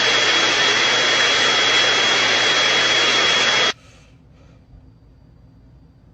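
A loud, steady rushing noise with a thin high whine in it, cutting off abruptly about three and a half seconds in, leaving faint room tone.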